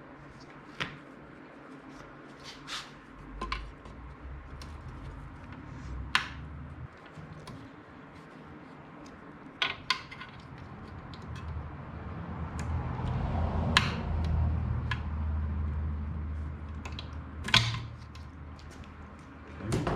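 Scattered sharp clicks and knocks of plastic trim and metal car seat parts being handled and fitted together. A low rustling rumble of handling grows louder past the middle and eases off near the end.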